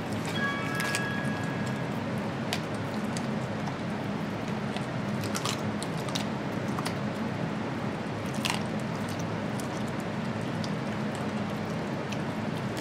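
A small puppy chewing a raw chicken foot, with wet squishing and sharp crunches as the small bones break, at irregular intervals.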